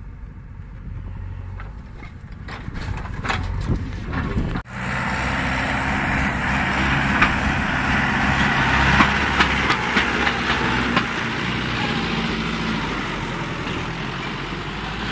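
Diesel engine of a Mahindra farm tractor running with a steady low drone. About four and a half seconds in the sound cuts abruptly to a louder, closer engine with a broad hiss over it.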